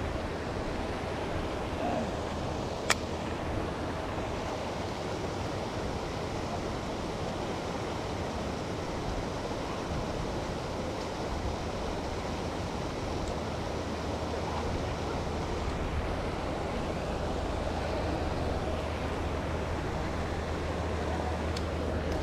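Steady rushing and splashing of pond aerators churning the water, with a low steady hum beneath, and a single sharp click about three seconds in.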